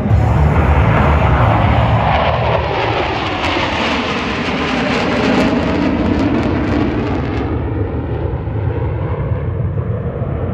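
F-16 Fighting Falcon fighter jets in a four-ship formation passing overhead: a steady jet roar whose pitch slides down as they go by, thinning out in the second half.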